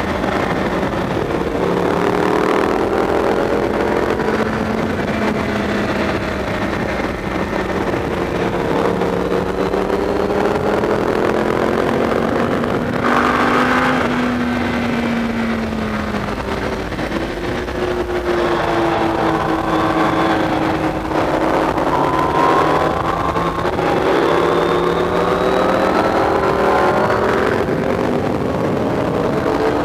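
Sport motorcycle engine at racing speed, heard from the bike itself. Its pitch climbs under throttle and drops back again and again through shifts and braking into corners, over a steady rush of wind.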